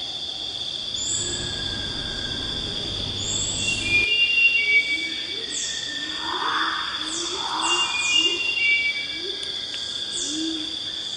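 Tropical rainforest dusk chorus, recorded in undisturbed Papua New Guinea forest: a steady high insect drone at two pitches under many overlapping bird and animal calls, including quick falling high chirps. From about five seconds in, a low call repeats roughly every half second. A low rumble underlies the first four seconds.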